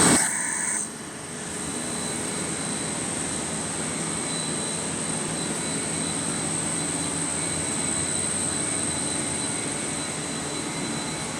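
Industrial plant machinery running steadily, a continuous noise with a constant high-pitched whine. A brief louder sound comes first, in the opening second.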